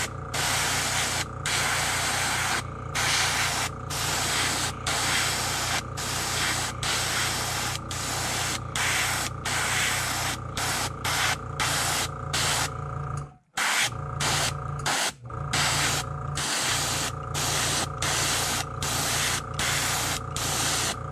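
Airbrush spraying paint in short passes, its hiss breaking off about once a second as the trigger is let go, over a steady low hum. About thirteen seconds in, both stop for a moment and then resume.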